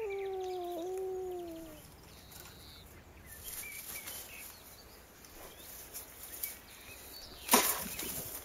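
Domestic cat giving one long yowl that rises and then slowly falls, lasting about two seconds. About seven and a half seconds in, a short, sharp, loud crackle.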